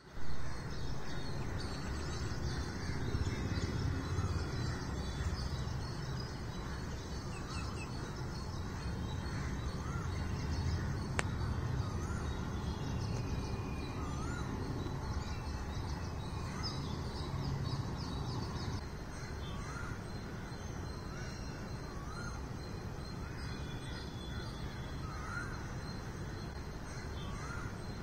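Birds calling and chirping over a steady low city rumble. One bird repeats a short rising-and-falling call every couple of seconds.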